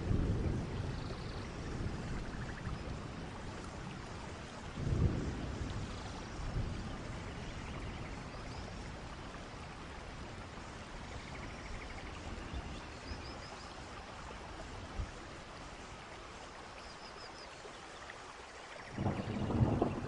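Waterfall rushing: a steady hiss of falling water, with low rumbles swelling about five seconds in and again near the end.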